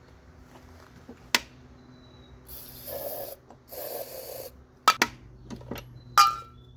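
Aerosol brake cleaner sprayed in two short hissing bursts into the spark-plug hole of a lawn mower engine that has spark but won't start, to prime the cylinder directly. A few sharp clicks come before and after.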